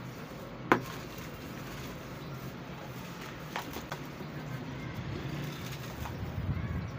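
Hands crushing and crumbling dry red sand brick, a soft crunching and sifting of grit and powder, with one sharp crack about a second in and two smaller cracks midway. A steady low hum runs underneath.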